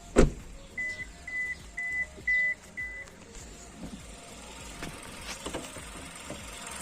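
A loud thump as a car door is worked, then the car's warning chime beeps five times, about two beeps a second. A few light clicks follow, over the faint idle of the Maruti Suzuki Dzire's petrol engine.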